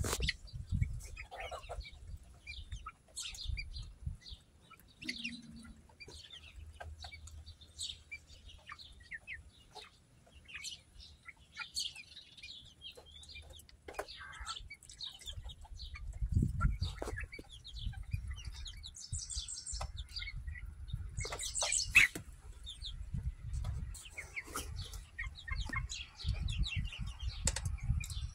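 A flock of chickens in a coop clucking and calling in short, scattered notes, with a louder burst of calls about three-quarters of the way through, over a low rumble.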